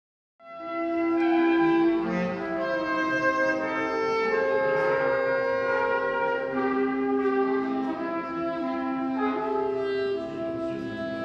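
Small wind ensemble, including a bass clarinet, playing long held notes that layer and overlap, the pitches shifting every second or two. The music starts about half a second in.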